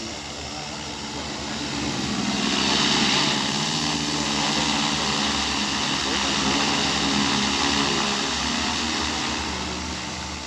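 Multirotor crop-spraying drone flying past, its propellers giving a steady hum with a hiss above it; it grows louder over the first three seconds, holds, and fades toward the end.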